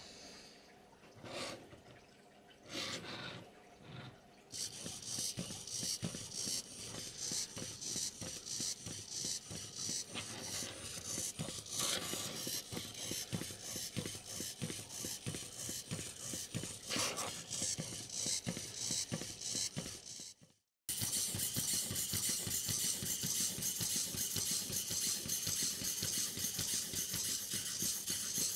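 Hobby servos of a small kneeless four-legged robot rapidly flapping its legs: a dense run of fast clicking and servo buzz, with the plastic feet tapping on the mat. A few separate knocks come first. The sound cuts out briefly about two-thirds of the way through, then resumes.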